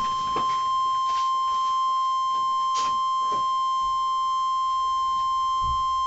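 NOAA Weather Radio warning alarm tone: a single steady, high, unbroken beep that cuts off sharply near the end. It signals that a warning message is about to be read.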